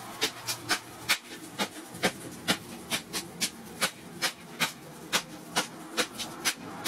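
Hand hammer striking red-hot steel cut from a disc brake rotor on an anvil: sharp metallic blows at a steady pace of about two a second, the glowing blank being forged flat into a knife.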